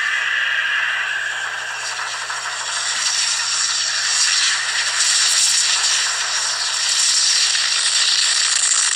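Film soundtrack of an action scene played at maximum volume through the small built-in speaker of a fourth-generation iPod touch: a steady, noisy rush and crackle with almost no bass.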